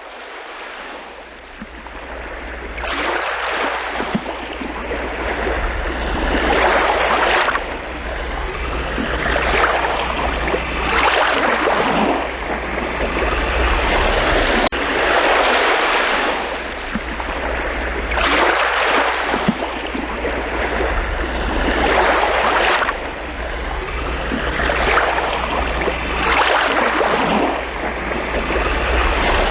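Baltic Sea surf: small waves breaking and washing up the beach, swelling and ebbing every few seconds over a steady low rumble.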